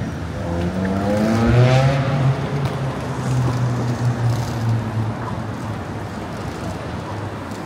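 A motor vehicle accelerating past, its engine note rising for about a second and a half, followed by a steady low engine hum that fades over the next few seconds against street traffic noise.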